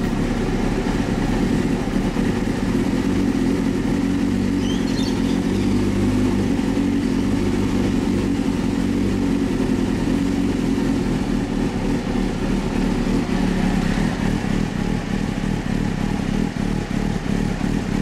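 A 1998 Honda Hornet 600's warmed-up inline-four engine idling steadily through unbaffled Devil slip-on shotgun exhaust pipes.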